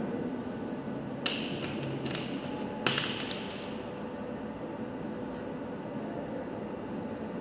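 Two sharp clicks about a second and a half apart as felt-tip pens are handled, a blue one set down and an orange one taken up, over a steady low room hum.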